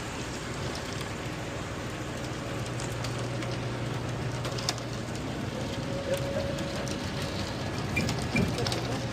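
Concrete mixer truck running while it discharges, with a steady rushing noise throughout. A low engine hum sets in about two and a half seconds in, and a few scattered clicks and knocks can be heard.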